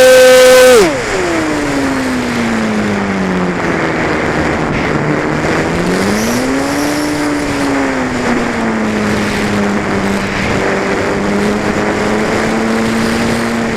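Motor and propeller of a radio-controlled Cessna 185 model airplane, heard from the onboard camera. It runs at full throttle, then is throttled back about a second in, its pitch sliding down. The pitch rises briefly again and then settles at a steady lower part-throttle drone.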